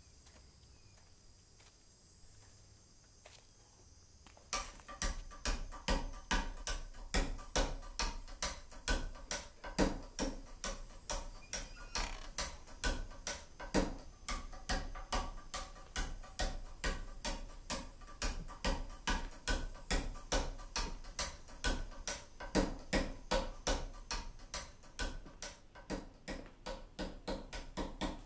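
Faint crickets chirping, then from about four and a half seconds in a fast, even run of sharp ticks and knocks, about four a second, that keeps going.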